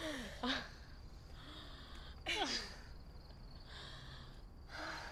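Girls laughing breathlessly and gasping for breath in short bursts, the clearest about half a second and two and a half seconds in.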